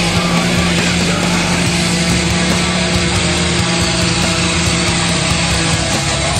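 Loud heavy rock music with a long held low note.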